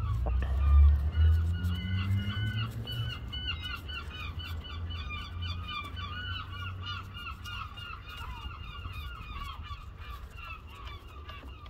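Poultry calling over and over in quick short calls. Under it is a low rumble, loudest about a second in, that fades away.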